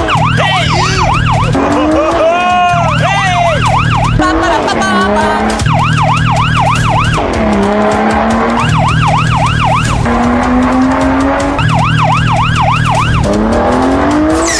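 Siren sound effect. Fast up-and-down yelping comes in bursts of about a second and a half, roughly every three seconds, with slower rising tones between the bursts, over a steady background bed.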